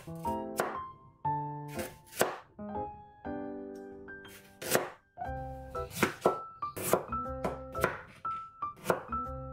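Chef's knife cutting carrots and then potato on a plastic cutting board: a sharp knock with each cut, irregularly spaced, a second or so apart at first and closer together in the second half. Background music plays throughout.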